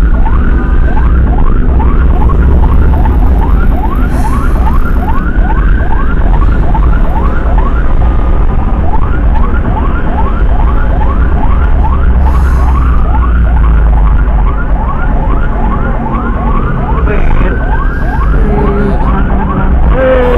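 Emergency siren heard from inside an ambulance cabin. It runs mostly in a fast yelp of rising sweeps, about four a second, and every few seconds switches to a slower rising wail. A steady low engine and road rumble lies underneath.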